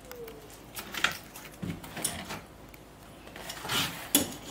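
Scattered short scraping and rubbing strokes as a resin roller and brush are worked over a wet fiberglass layup, with a sharper knock near the end.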